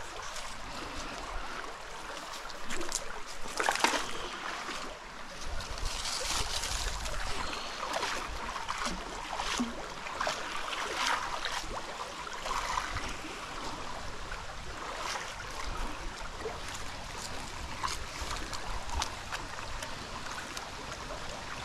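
Shallow stream flowing steadily over its bed, with a sharp splash about four seconds in as a neodymium fishing magnet on a rope is thrown into the water.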